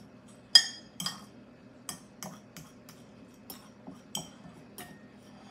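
Metal fork clinking and scraping against a glass bowl while mashing hard-boiled egg yolks: irregular clinks about twice a second, some ringing briefly, the loudest about half a second in.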